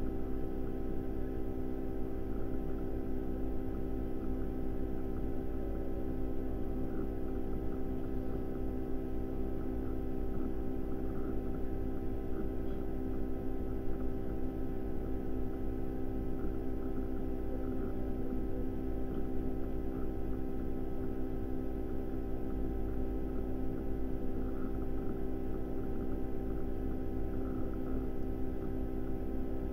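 A steady hum made of several held tones over a low rumble, unchanging throughout.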